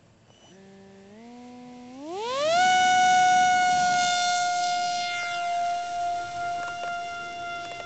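Multiplex Easy Star RC plane's electric pusher motor and propeller throttling up for a ground take-off: a whine that steps up a little about half a second in, then rises steeply in pitch around two seconds in to a loud steady high whine, slowly fading as the plane climbs away.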